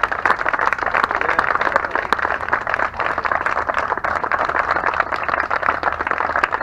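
A small crowd applauding, a steady patter of many hands clapping together.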